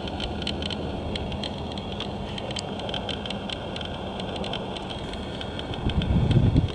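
Wind noise on the camera microphone with scattered faint crackles, and a low gusting rumble about six seconds in.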